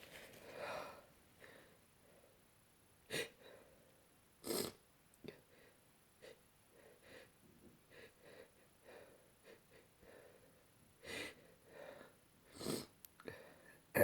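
A person's short, breathy gasps and sniffs as a sneeze builds but will not come. There are a few sharp breaths in the first five seconds, a long near-quiet stretch, then more near the end.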